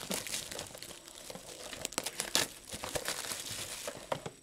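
Clear plastic shrink wrap crinkling and tearing as it is peeled off a trading-card blaster box, an irregular scatter of sharp crackles.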